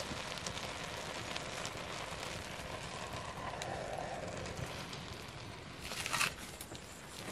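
Wood fire burning under a pot of rice, a steady hiss with small crackles. About six seconds in, a brief louder metallic scrape as the metal lid is set on the pot.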